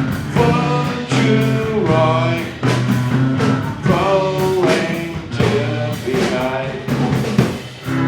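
Rock band music with a sung lead vocal over drum kit and low instrumental notes, in a steady beat.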